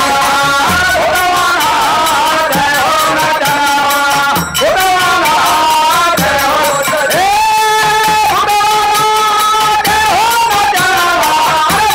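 Nagada birha folk song: male voices singing, holding long notes in the second half, over steady strokes on a pair of nagada kettle drums beaten with sticks.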